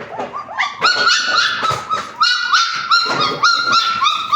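Young puppies whining and yipping, a quick run of short, high-pitched cries, several a second and overlapping one another.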